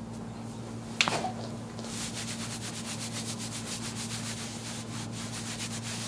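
Hands rubbing briskly back and forth over a patient's back through her top, in quick even strokes several times a second from about two seconds in. A single sharp crack about a second in is the loudest sound.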